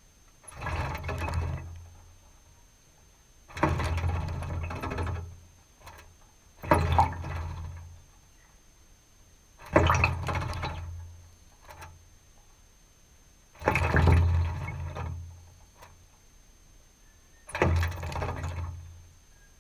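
North Island robin bathing in a shallow metal water trough, splashing water in six bouts of a second or so each, one every three to four seconds, with quiet pauses between.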